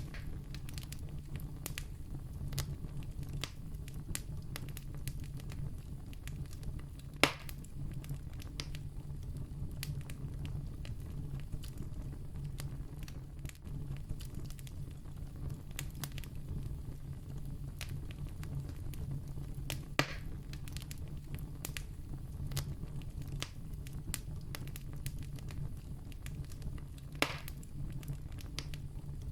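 Wood campfire burning with a steady low rumble and a constant scatter of small crackles. Three louder, sharp pops stand out, spread several seconds apart.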